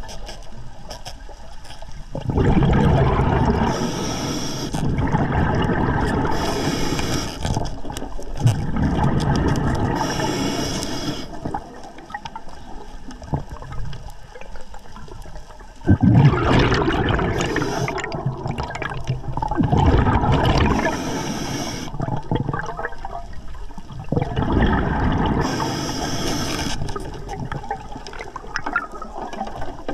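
Scuba diver breathing through an Atomic regulator underwater: about six breaths, each a short hissing inhale followed by a long gush of bubbling exhaust.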